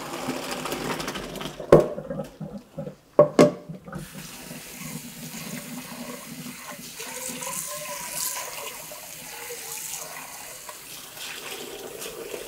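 A pot of parboiled rice and its cooking water poured out into a metal colander in the sink to drain. Three sharp metallic knocks come in the first few seconds. Then a steady stream of water runs onto the rice in the colander.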